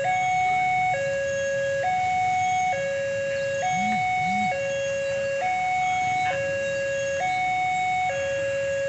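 Level-crossing warning alarm sounding: an electronic two-tone signal that switches between a higher and a lower note about once a second, steadily and without pause, as a train approaches the crossing.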